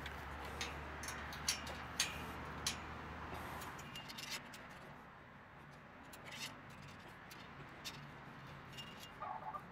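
Scattered light metallic clicks and taps as a galvanized steel truss wire and its small U-bolt cable clamp are handled against the chain link gate's steel tube frame.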